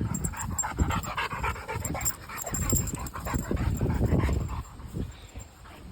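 Two dogs panting hard, huffing and puffing as they wrestle; the breathing is quieter near the end.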